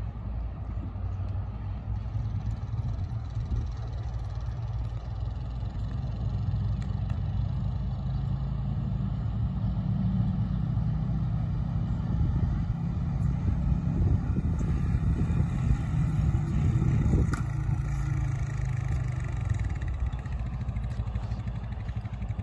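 ATV engine running as the four-wheeler drives across the arena towing a calf roping dummy on a sled. Its note is steady, growing somewhat louder through the middle.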